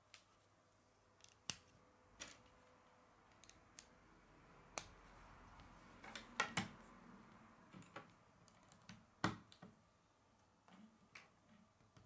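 Plastic K'nex rods and connectors clicking and snapping together as they are handled and assembled: about half a dozen sharp clicks at irregular intervals, with fainter clicks and rustling between them.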